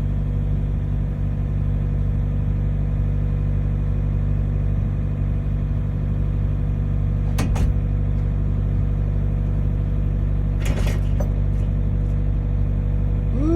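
Excavator's diesel engine running steadily under load while it lowers a septic tank, with two short knocks about midway and near the end.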